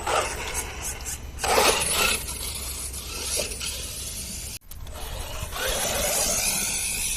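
1/8-scale brushless RC truggy running in surges, with a scraping, rasping mechanical noise from its drivetrain that the owner finds not right and suspects may come from differentials lacking proper grease. The sound breaks off abruptly about halfway through, then resumes.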